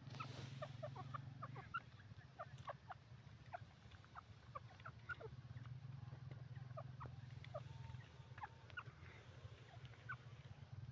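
Grey francolin giving faint short call notes, about two or three a second, while it forages on the ground, over a steady low hum.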